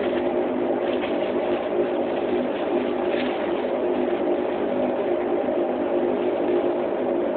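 Steady drone of a LIAT Dash 8's turboprop engines and propellers heard inside the passenger cabin, an even hum with several steady tones.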